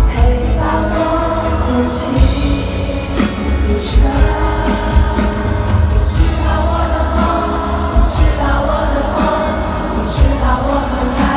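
Live pop ballad at a concert, heard from the audience: a woman sings into a microphone over the band's steady drum beat, and a man's voice takes over near the end.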